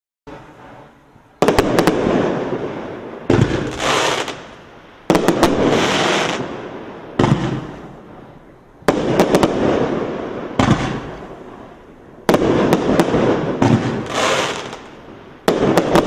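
Miracle Fireworks 'Mine Fields' 500-gram, 25-shot cake firing in about nine volleys roughly two seconds apart. Each volley opens with a few sharp launch cracks, then a rushing hiss of the gold mine and star effects that fades before the next.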